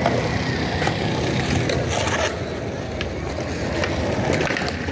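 Skateboard wheels rolling over rough pavement with a steady rumble, with several sharp clacks of the board striking the ground spread through it.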